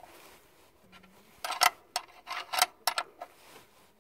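Open-end steel wrench clinking against a bolt on the car's underside as it is fitted and turned by hand: a quick series of sharp metallic clicks, mostly between about one and a half and three seconds in.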